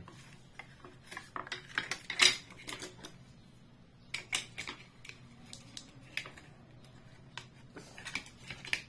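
Irregular clicks and small knocks of a flat metal blade prying at the black plastic housing of a digital bathroom scale, forcing out a display held in with strong adhesive.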